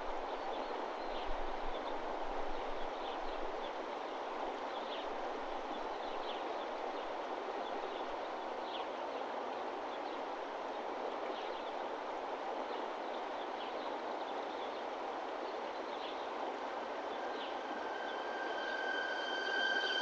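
Steady hiss-like ambient noise with faint, short, high chirps scattered through it, the atmospheric opening layer of a dark ambient track; right at the end several steady synth tones come in.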